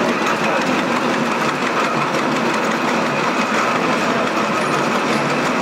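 Garrett steam traction engine driving slowly, its motion and gearing giving a steady mechanical clatter.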